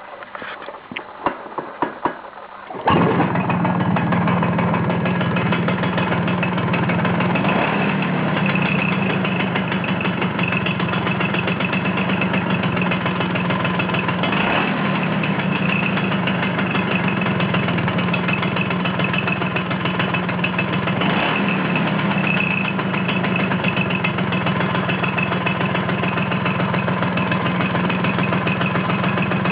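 Vespa T5's 125 cc two-stroke single-cylinder engine: a few sharp knocks, then it starts about three seconds in and idles steadily. It idles with a metallic noise that goes away when the clutch is pulled in.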